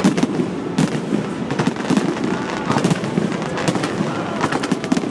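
Fireworks display: many bangs and crackles going off in quick, irregular succession, overlapping one another.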